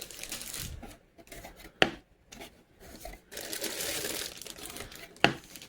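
Plastic bags of model-kit runners rustling and crinkling as they are handled, with two sharp clicks, about two seconds in and near the end.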